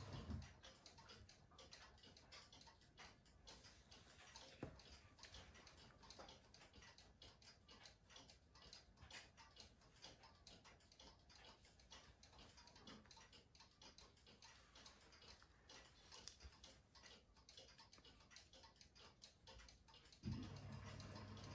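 Near silence filled with faint, irregular small clicks and ticks, one slightly louder click about five seconds in.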